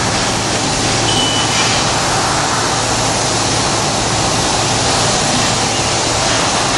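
Steady, loud machinery noise: a dense, even hiss with a constant low hum beneath it and a brief faint high whine about a second in.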